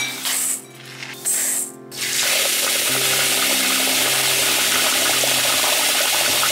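Cold tap water pouring steadily into a stainless steel bowl of uncooked sticky rice, filling it to soak the rice. It starts about two seconds in, over background music.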